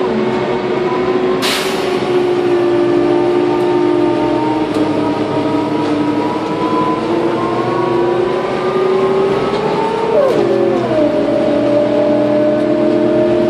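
Karosa B931 city bus's ZF automatic gearbox and diesel engine pulling under way, heard from inside the passenger cabin: a pitched whine that climbs slowly, then drops sharply about ten seconds in at an upshift and holds steady. A short sharp hiss or knock sounds about a second and a half in.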